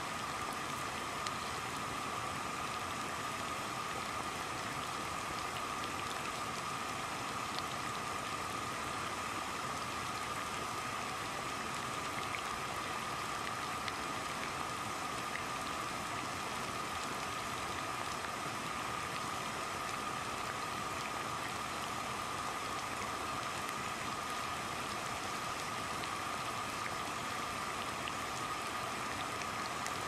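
Water boiling together with a burning gas flame: a steady, dense bubbling and hiss that doesn't change.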